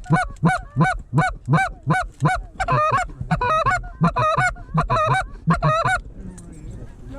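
Canada geese honking in a steady series, about three honks a second, with several overlapping in places; the honking stops about six seconds in.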